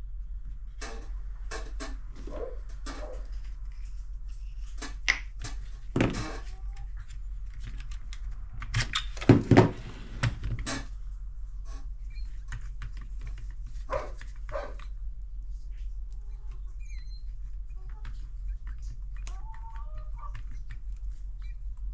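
Clicks, knocks and rubbing from hands handling the opened plastic housing and internal parts of a cordless jigsaw, with a cluster of louder knocks about nine to ten seconds in. A steady low hum runs underneath.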